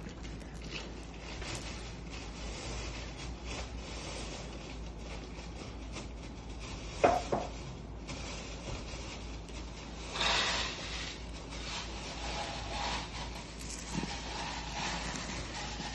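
Loose Tahitian pearls pushed and rolled across a tabletop with wooden sticks: a steady rubbing and scraping, with a sharp click about seven seconds in, a louder scraping spell around ten seconds and a smaller click near fourteen seconds.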